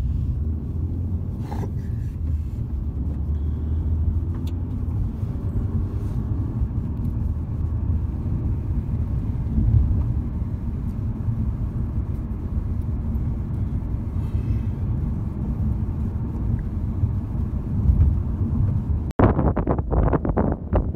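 Steady low road rumble of a moving car. About nineteen seconds in it cuts off abruptly, giving way to gusty wind buffeting the microphone.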